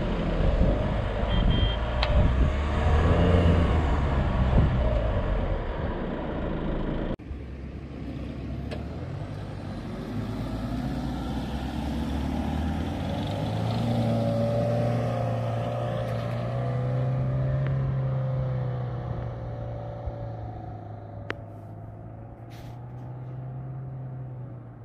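4x4 SUV engines working in soft sand. For about the first seven seconds there is loud engine and wind noise from a moving vehicle. It cuts off abruptly to a quieter, more distant engine hum whose revs rise and fall.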